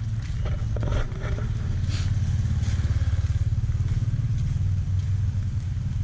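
A small engine running at a steady low pitch, with its throb pulsing more strongly about halfway through and a few short knocks in the first second.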